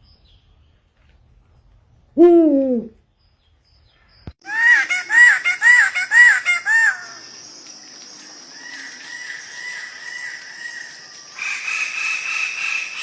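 Bird calls in sequence: a single falling call about two seconds in, then five quick arched calls, two to a second. Fainter repeated calls follow over a steady hiss, and a higher, brighter call sound comes in near the end.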